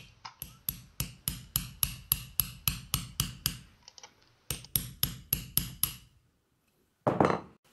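Light hammer taps on a metal pin punch, about four a second, driving a stuck hotend nozzle assembly out of an aluminium cooling bar held in a vise. About a dozen taps, a short pause, then about seven more.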